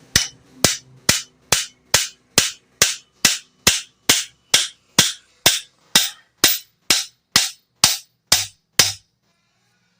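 Hammer blows driving a new ball bearing onto the shaft of a Kirloskar 0.5 hp Tullu water-pump motor: about twenty sharp, evenly spaced strikes, a little over two a second, stopping about a second before the end.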